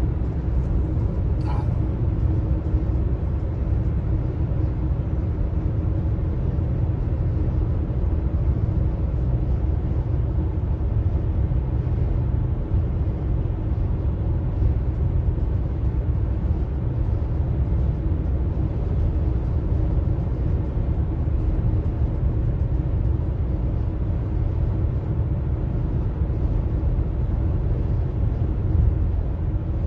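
Steady road noise inside a car's cabin at highway speed: a low, even rumble with a faint steady hum.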